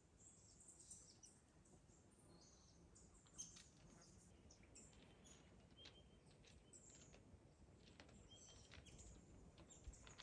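Near silence with faint, scattered high bird chirps and a few light ticks.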